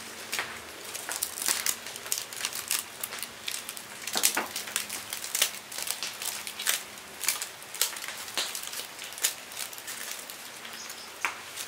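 Irregular crinkling and rustling of plastic and leaf wrappings as food is picked off them by hand, with many sharp crackles.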